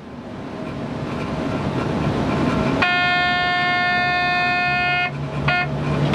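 Electric locomotive heard from inside its cab: a rumble that grows steadily louder, then the locomotive's high-pitched horn sounded in a long blast of about two seconds, a short toot, and another blast starting right at the end.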